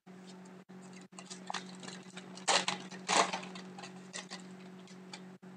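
Foil wrapper of a 2011-12 Titanium hockey card pack being torn open and crinkled, with two louder crackles about halfway through, after a few light clicks as the pack is picked up. A steady low electrical hum sits underneath.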